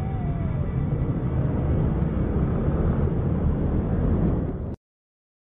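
Low, rumbling road noise from scooters and traffic picked up by a helmet-mounted camera, steady and then cutting off suddenly about a second before the end.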